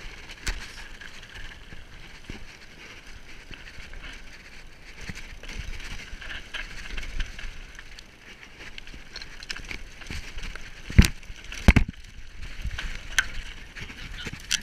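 Mountain bike riding fast over rocky, stony singletrack: tyres crunching on loose stones and the bike rattling with many small clicks. There are two loud knocks close together about eleven seconds in.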